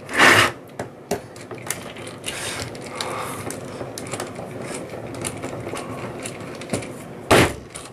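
Screwdriver working long slotted screws out of a plastic computer case, a steady rasping scrape with many small clicks as the screw heads catch in the plastic. There is a louder short rasp at the very start and another near the end.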